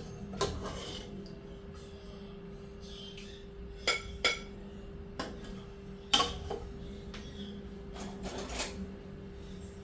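Dishes and cutlery clinking and scraping: scattered sharp clinks, two close together about four seconds in and the loudest about six seconds in, with a short scrape near the end.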